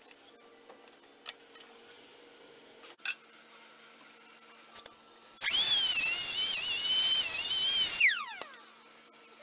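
A high-speed power tool runs for about two and a half seconds with a wavering whine, then is released and spins down, its pitch falling away. A sharp click comes earlier, about three seconds in.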